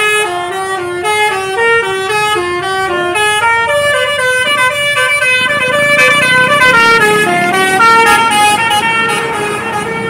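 Basuri telolet horn on a bus playing a loud, fast melody of short stepped notes that changes pitch several times a second. Bus engine and traffic rumble sit underneath from about halfway.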